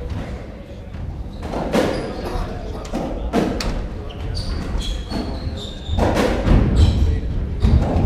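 Racketball rally: the ball is struck by the rackets and smacks off the court walls in a series of sharp thuds, roughly every one and a half to two seconds, with short squeaks of shoes on the wooden floor.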